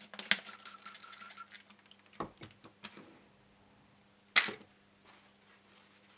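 Squeeze bottle of isopropyl alcohol squirting into an opened capacitor can: a brief hissing squirt with a thin whistling tone lasting about a second. Small handling clicks follow, then a sharp knock about four seconds in.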